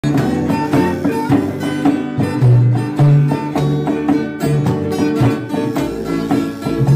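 Upbeat background music of quick plucked-string notes over a recurring bass note.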